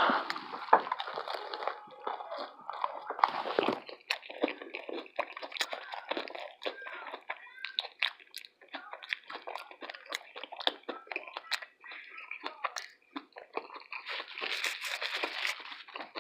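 Close-miked chewing and crunching of a crisp taco shell, with many short, sharp crunches and mouth clicks in quick, uneven succession.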